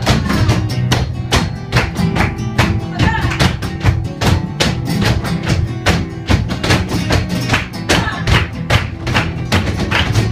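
Flamenco music with guitar, played throughout, over many quick, sharp percussive strikes.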